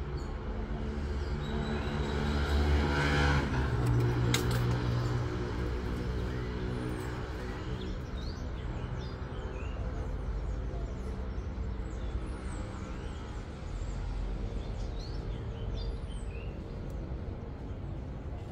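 A motor vehicle's engine hums steadily, swelling louder and fading again a few seconds in, as if passing. Small birds chirp on and off throughout.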